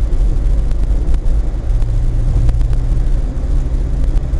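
Steady low rumble of a car's engine and tyres on the road, picked up inside the cabin by a dashcam, with a few light ticks.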